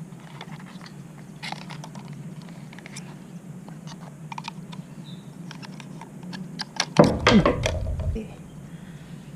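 Scattered light clicks and taps over a steady low hum, with a louder clatter of knocks and a brief falling squeak about seven seconds in.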